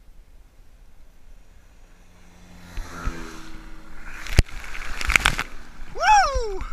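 A towboat's engine drawing near, then a barefoot water-skier skimming past close by with a hiss of spray and sharp knocks of water striking the camera at the surface. Near the end a short pitched cry rises and then falls.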